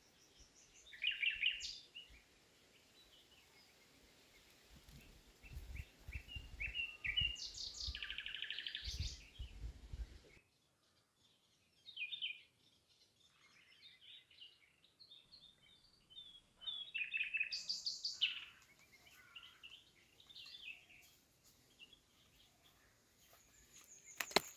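Small birds chirping and trilling in repeated short bursts, with a low rumble underneath for a few seconds in the first half.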